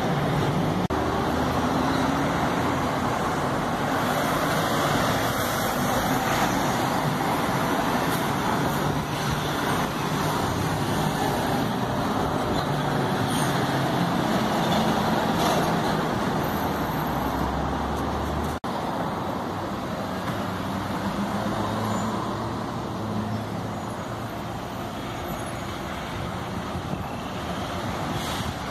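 Street traffic: city buses and cars driving past with their engines running, a steady rumble of motors and tyres, broken once by a short gap about two-thirds of the way through.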